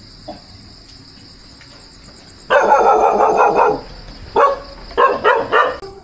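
Dog barking: a loud run of barking lasting just over a second, starting about two and a half seconds in, then four short single barks. Insects chirr steadily throughout.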